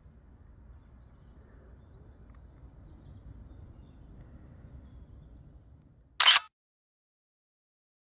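Faint forest ambience with a low wind rumble and a few faint high bird chirps, then about six seconds in a single short, loud camera-shutter click sound effect, after which the sound cuts to dead silence.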